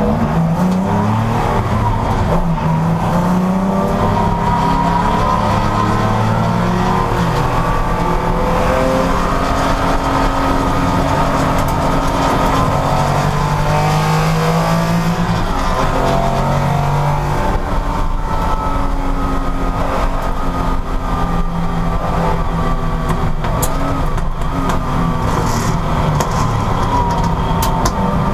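A pack of 1960s racing cars' engines revving and accelerating together at a race start, several engine notes at once rising and falling in pitch as they change gear.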